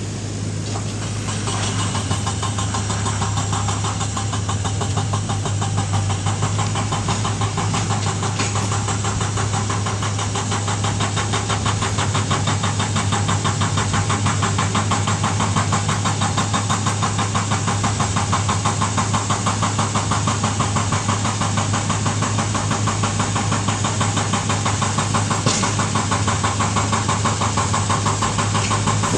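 Small crawler dozer's diesel engine running steadily with a fast, even pulse as the blade pushes a load of dirt.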